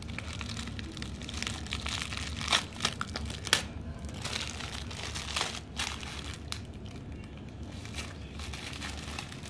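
A toddler's hands crumpling and shaking a piece of paper: bursts of crinkling, sharpest around three seconds in, thinning to scattered rustles in the second half.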